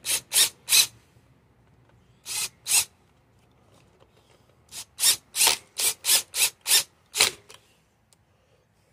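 Cordless impact driver with a 5/16-inch socket run in short trigger bursts, driving screws into metal: three quick blips, then two, then a run of about eight closely spaced bursts.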